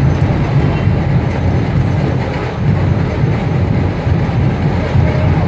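Dhol-tasha drumming in a dense, steady beat, with the deep drum tones strongest.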